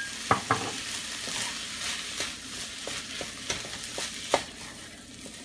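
Fried rice with peas, carrots and egg sizzling in a nonstick frying pan, freshly sprinkled with soy sauce, as a wooden spoon stirs and scrapes through it. Scattered knocks of the spoon against the pan, the loudest about four seconds in.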